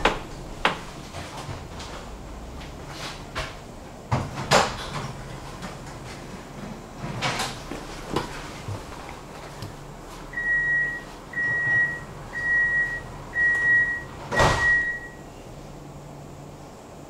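Tram door-closing warning: five short high beeps about a second apart, with the doors shutting with a heavy knock during the last beep. Several sharper clunks and knocks come earlier.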